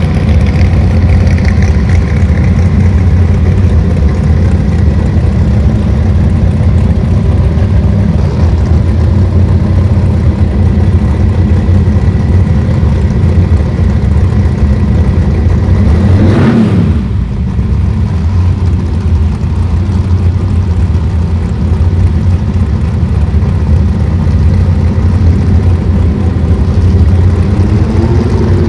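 Drag race car engines idling loudly and lumpily at the starting line. A brief gliding sweep passes about halfway through, and near the end the engine pitch starts to rise as the revs come up for the launch.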